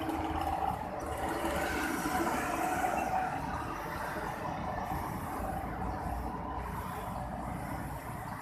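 Road traffic passing on a street: engine and tyre noise of a pickup, a truck and cars going by. It is loudest in the first few seconds and eases off after.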